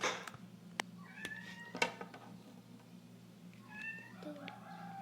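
Domestic cat meowing: a short meow about a second in and another longer one around four seconds in, with a few light clicks between them.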